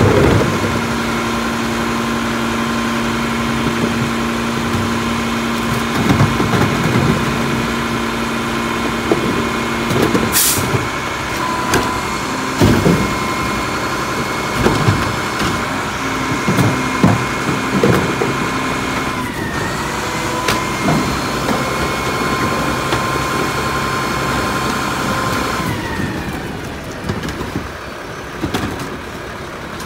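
Garbage truck with a McNeilus front-loader body and a Curotto Can cart tipper, running under hydraulic load with a steady engine and pump whine as the arm lifts and dumps carts. Repeated clunks and knocks of plastic carts being wheeled and banged against the tipper. The whine shifts pitch a couple of times and mostly drops away near the end.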